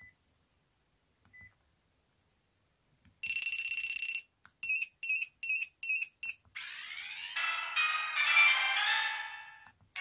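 Built-in ringer tones of a Panasonic P504i flip phone being previewed: two faint key beeps, then a steady, high electronic buzzer tone for about a second, then a buzzer pattern of five quick beeps. About halfway through, a fuller electronic sound effect with sweeping tones starts and fades away near the end.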